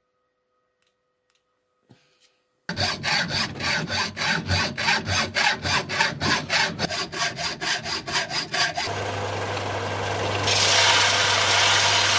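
Hand hacksaw cutting through a copper pipe offcut in quick, even strokes, about three to four a second, starting a little under three seconds in. Near the end a combination belt and disc sander's motor is running with a steady hum, and from about ten seconds the cut pipe end is pressed against it to take off the burr, adding a loud grinding rush.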